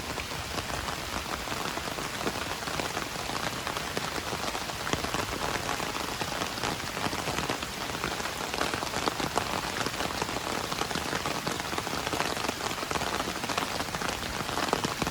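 Steady rain falling on hard surfaces, a dense, even patter with many individual drop impacts.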